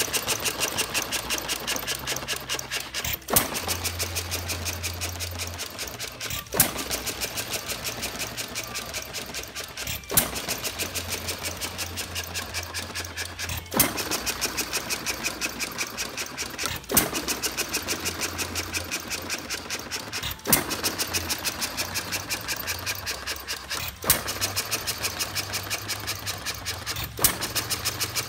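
Antique Ajax Iron Works sideshaft hit-and-miss gas engine running: a fast steady clicking from its moving parts, with a sharp firing bang about every three and a half seconds, eight in all. Between bangs it coasts on its flywheels without firing, the governor holding its speed.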